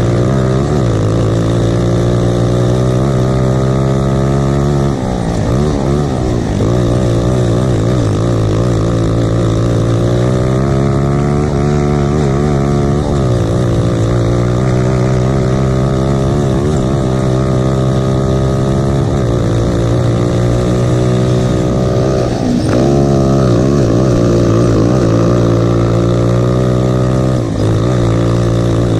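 Kart's Lifan single-cylinder four-stroke engine running hard, heard from on board the kart. The revs dip and climb again about five times as the kart slows for corners and accelerates out.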